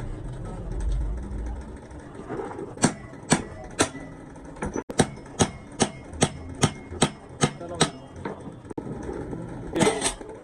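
A hammer striking metal in a steady run of about a dozen sharp blows, roughly two a second, then a pause and two more blows near the end.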